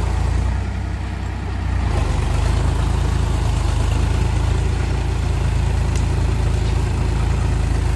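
Tractor diesel engine running steadily under load, driving a rotavator that churns through waterlogged mud. The level dips slightly about a second in, then holds steady.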